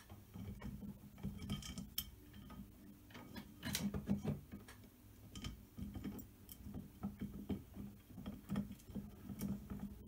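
Irregular small metallic clicks and taps of a bolt being worked by hand into the bakelite plate and aluminium extrusion of a 3018 CNC router kit; the first bolt is going in stiffly. A faint steady low hum runs underneath.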